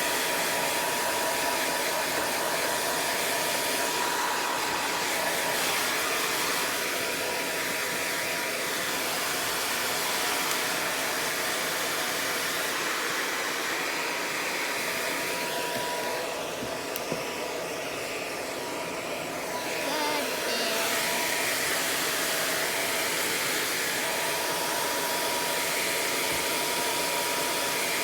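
Hair dryer blowing steadily while a Yorkshire terrier is dried, with a faint steady whine; it grows a little quieter for a few seconds past the middle, then comes back up.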